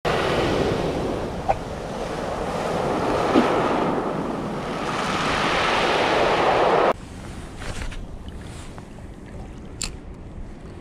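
Surf washing onto a pebble beach, swelling and easing, cut off abruptly about seven seconds in. What follows is much quieter outdoor sound with a few faint clicks and a sharp tick near the end.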